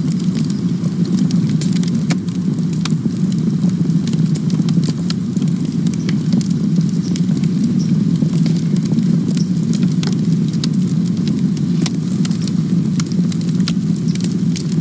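Wood campfire burning: a steady low rumble of flames with frequent sharp crackles and pops from the burning wood.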